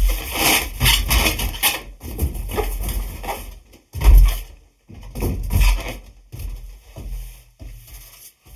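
Hands rubbing and squeezing an air-filled latex balloon, giving irregular bursts of squeaky rubbing with short pauses, and louder thumps at the start and about four seconds in.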